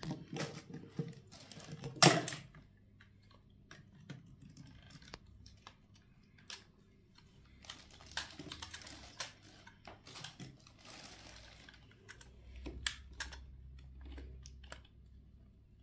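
Plastic attachments of a KIWI KCC-4320 carpet and upholstery cleaner being handled and snapped into place: irregular clicks and knocks, the loudest about two seconds in, with some rustling in the middle.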